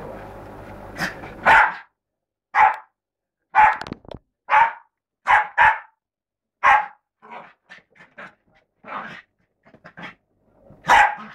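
Bichon Frise barking during play with another dog: a run of short, sharp barks about once a second, with quieter yips in between and another loud bark near the end.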